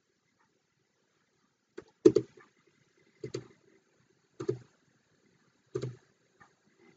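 A faint tap, then four loud, sharp key strikes on a computer keyboard about 1.2 seconds apart. It is the Enter key being pressed again and again to accept each default answer in a terminal installer.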